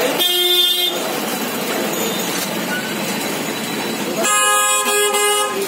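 A horn blows twice over steady street noise: a short blast near the start and a longer one about four seconds in.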